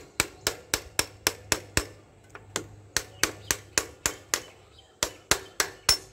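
A hammer striking a steel rod held against the swing arm axle of a Bajaj Pulsar, metal on metal, driving the axle back through the frame. The blows come about four a second in three runs, with short pauses about two seconds in and again past the four-second mark.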